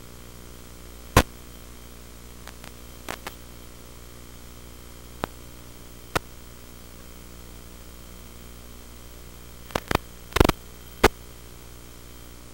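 Steady electrical hum and static from an analog FPV video recording, with no motor sound in it, broken by sharp pops: a loud one about a second in, a few small ones, and a cluster of louder pops near the end.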